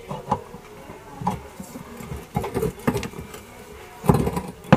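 Adjustable wrench working the nut of a homemade puller to draw the impeller off a monoblock water pump's shaft: irregular metal clicks and knocks, with a cluster of them near the end.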